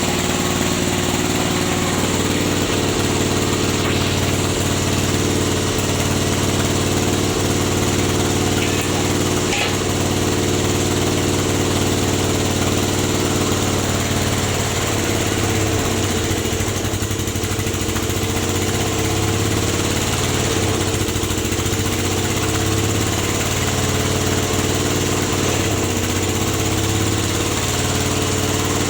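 Engine-driven rubber sheet press machine running steadily, a continuous engine note, which wavers and dips from about halfway through.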